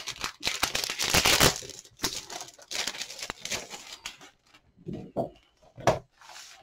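Crinkling and rustling of packaging and paper as a 12x12 scrapbook paper pad is handled, steadiest and loudest over the first couple of seconds, then in shorter irregular spells with a few sharp crackles near the end.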